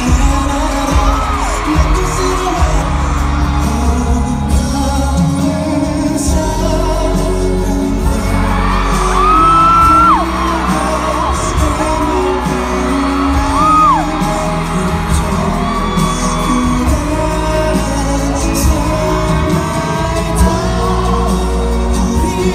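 Pop music with singing playing loudly through a concert hall's sound system. About nine seconds in comes a long, high held note.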